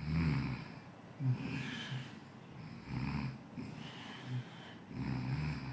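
A sleeper snoring while lying on its side, a rough snore on each breath about every second or so.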